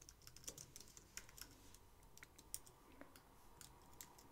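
Faint typing on a computer keyboard: a quick, irregular run of key clicks.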